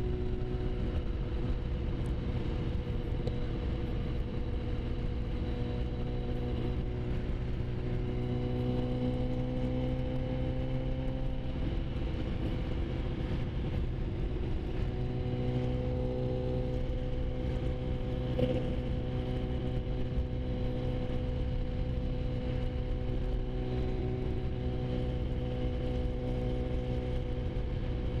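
Sport motorcycle engine holding a steady highway cruise, heard from the bike with wind rush underneath. The engine pitch rises a little about a third of the way in, then settles back.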